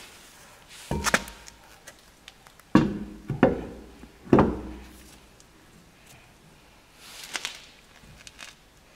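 An alloy car wheel being handled and fitted onto a rear brake drum hub: several dull knocks and thuds, with a brief rustle near the end.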